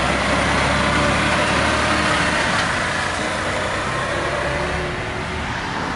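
Mercedes-Benz Actros MP4 truck with trailer driving past and pulling away, a steady mix of diesel engine and tyre noise that grows slightly quieter near the end.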